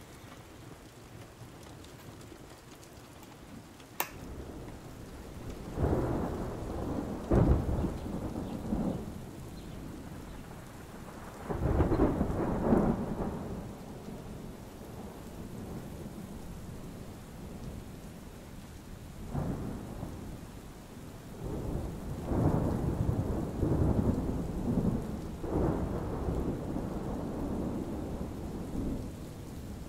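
Steady rain with rolling thunder: long low rumbles swell and fade several times, loudest about six to nine seconds in and again around twelve seconds. A single sharp click about four seconds in.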